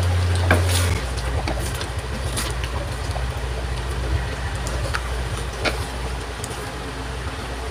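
A wooden spatula scraping and tapping against a metal wok as a thick tomato stew is stirred at a simmer, with a few sharp clicks from the spatula hitting the pan. Under it runs a steady low hum that turns rougher about a second in.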